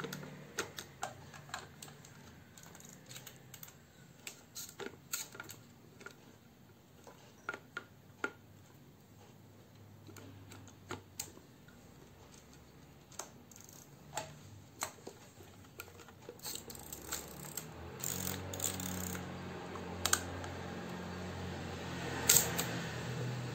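Irregular small mechanical clicks and taps from hands handling a Mamiya C33 Professional twin-lens reflex camera, with the sharpest click near the end. A low hum comes up in the second half.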